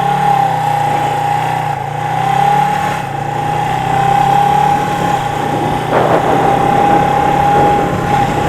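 Two-cylinder engine of a 1977 Suzuki GS400 motorcycle running at a fairly steady speed, with a steady whine over the engine note; a rougher rush of noise joins about six seconds in.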